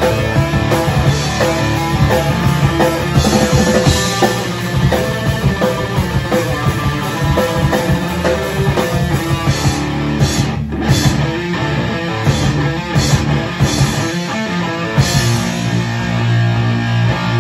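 Heavy rock band playing: distorted electric guitar riffing over a drum kit with crashing cymbals.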